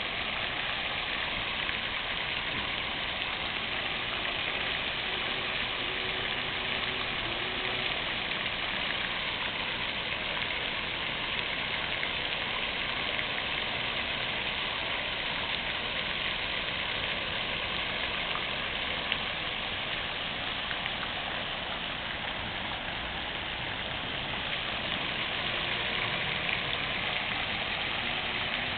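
Fountain water splashing and falling in a steady, unbroken rush.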